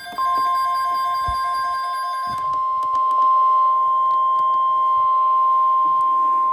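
NOAA Weather Radio warning alarm tone: a single steady 1050 Hz tone held without a break, beginning just after the start, sounding to announce an emergency alert broadcast.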